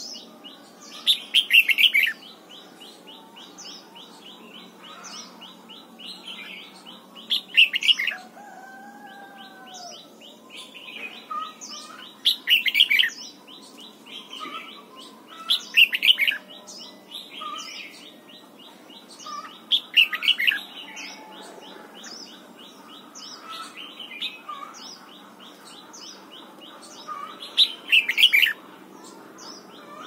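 Red-whiskered bulbul singing: six loud, short whistled phrases spaced a few seconds apart, over a steady fast high ticking and faint higher chirps.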